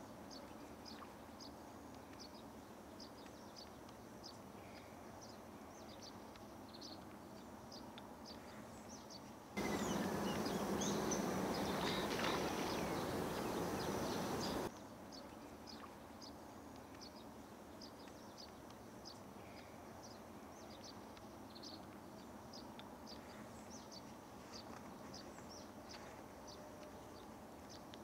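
Faint outdoor ambience: short high bird chirps repeat throughout over a soft steady hiss. Near the middle, a louder rushing noise cuts in for about five seconds and stops abruptly.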